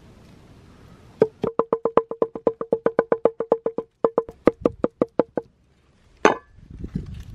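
Large hand-forged cleaver chopping raw lamb into mince on a wooden board: a rapid, even run of ringing wooden knocks, several a second. After a short break the strokes come more slowly, and one louder single knock follows about a second later.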